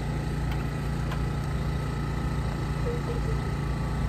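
A vehicle engine idling with a steady low hum, over street noise.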